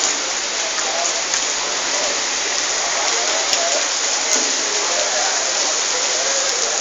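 Monsoon rain falling steadily on surfaces, an even, unbroken hiss, with faint voices underneath.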